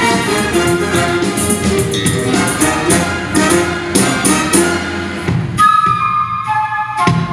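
Jazz big band playing with a concert flute soloing over congas and drum kit. About five and a half seconds in, the band drops out and the flute holds a few notes alone; the full band comes back in right at the end.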